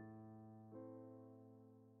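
Very faint background piano music: soft, sustained notes, with a new note coming in about three-quarters of a second in.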